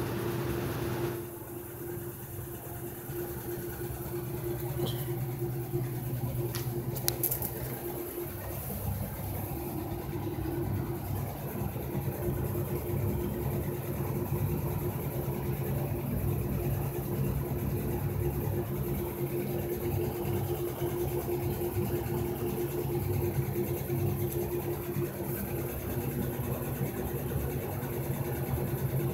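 Steady machine hum with a constant mid-pitched tone over a low drone, unchanging throughout, from a running motor-driven unit.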